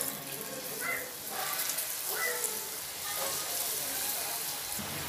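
Boondi batter (gram-flour drops) falling through a perforated ladle into hot oil and sizzling steadily as the many small drops fry, with a fine, rain-like crackle.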